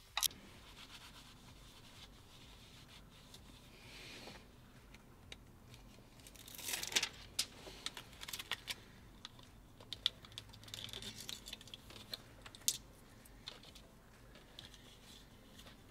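Faint crinkling, scratching and tearing of heat shield tape being peeled and wrapped by hand over a wire terminal, with scattered small clicks and a denser burst of crackling about six to seven seconds in.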